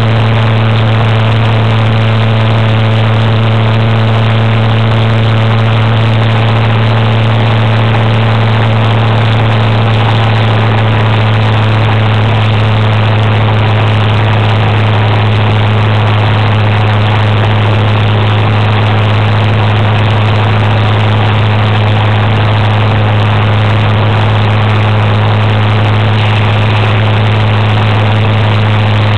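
Motor scooter engine running at a steady pitch while cruising at constant speed, over a rush of wind and road noise.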